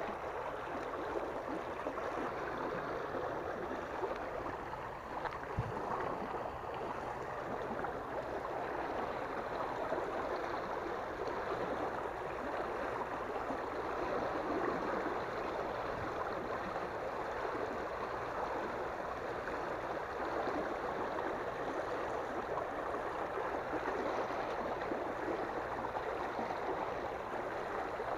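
River water rushing and churning along the bank in a steady, even rush.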